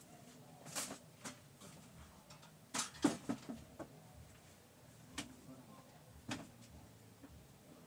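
A few scattered light clicks and knocks, with a quick cluster about three seconds in: handling noises from working on a sewing machine.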